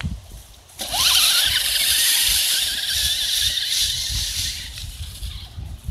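RC monster truck's motor whining up in pitch as it takes off about a second in, then running at a steady high whine with a hiss from its tyres through dry leaves, slowly fading as the truck drives away.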